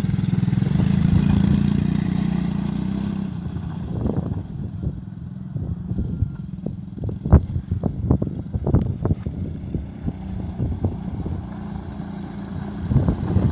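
Old ATV engine running steadily. About four seconds in it becomes quieter, and a run of sharp knocks and clatters sounds over it for several seconds. The engine grows louder again near the end.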